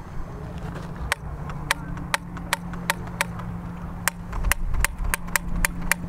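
Spark igniter of a hairspray-fuelled combustion cannon clicking over and over without the gun going off. The sharp clicks start about a second in and speed up from about two to three a second. The misfire is one that the shooters put down to the wind or maybe too much hairspray. A low wind rumble runs underneath.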